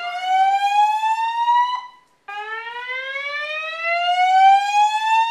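Fire alarm voice-evacuation speaker sounding a slow-whoop tone: a loud rising sweep that climbs steadily in pitch, once ending about two seconds in and starting again just after. The tone signals that the building's fire alarm has been activated.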